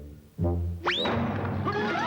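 Cartoon orchestral score: a short low held note, then a quick rising whistle-like glide about a second in, followed by busy orchestral music with sliding lines.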